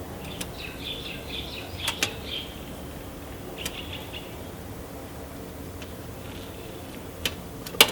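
Motorcycle headlight wire connectors being pulled off by hand, giving a few sharp clicks, the loudest near the end. Birds chirp in the background.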